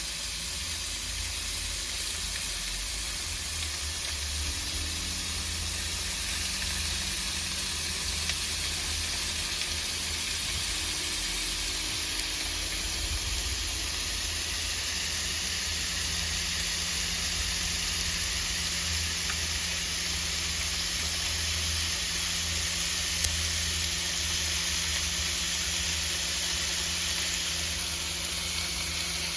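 Pork sizzling on a grill: a steady hiss from the cooking meat, with a few short pops and a low rumble underneath.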